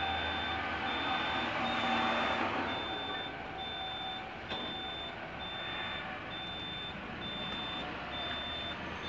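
Vehicle reversing alarm sounding a regular high beep, about once a second, over a steady background rumble.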